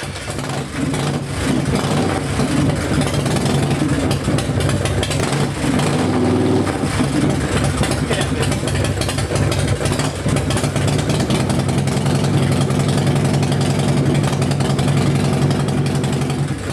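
Harley-Davidson V-twin engine running at a steady idle, fading in over the first second or two.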